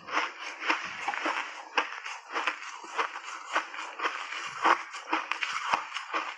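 Shaved ice dusted with matcha powder and milk cream being chewed with the mouth closed: a rapid, irregular run of crisp crunches, several a second.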